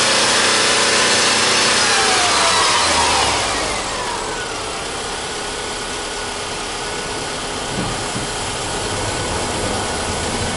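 Subaru Legacy 2.0i's EJ20 2.0-litre flat-four engine running at raised revs. About three seconds in, the revs drop back over a second or so to a steady idle.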